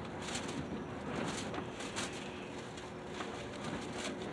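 Close-up mouth sounds of someone eating a frozen popsicle: a run of short wet clicks and smacks from biting and chewing, over a faint steady hum.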